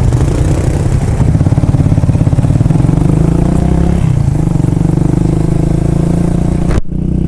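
Suzuki VanVan 200 motorcycle's single-cylinder engine running on the road, rising in pitch as it accelerates over the first few seconds, then holding steady, with rushing air. Near the end the sound breaks off abruptly and resumes duller.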